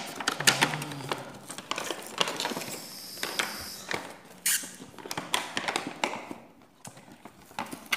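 Cardboard box and its plastic insert being handled and the box flap pried open: scattered clicks, scrapes and crinkling, with a stretch of higher hiss about three seconds in.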